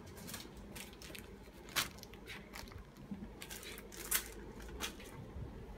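Clear plastic motorcycle helmet visor being handled: a run of light plastic clicks and crackles, with two sharper clicks about two and four seconds in.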